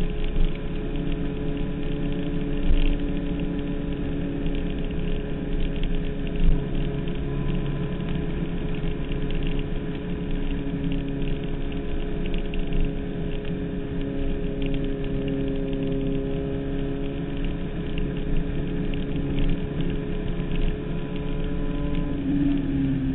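Suzuki Hayabusa 1300's inline-four engine running at steady revs under way, heard from the rider's seat; about a second before the end the revs drop.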